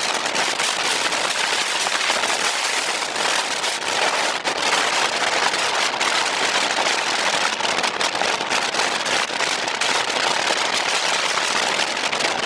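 Steady rushing hiss with fine crackling: wind buffeting the microphone of a camera on a moving motorcycle. No clear engine note comes through.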